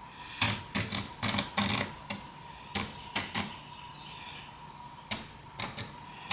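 A series of short, irregular scraping clicks from a micro chisel being swiped along an aluminum guide bar to cut inlay grooves. The strokes come in quick runs with short pauses, and the chisel catches on the aluminum bar.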